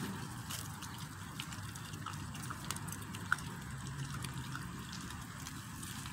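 Puppies chewing and tearing at a raw whole chicken: wet smacking and tearing over a steady background hiss, with a few small clicks, one sharper about three seconds in.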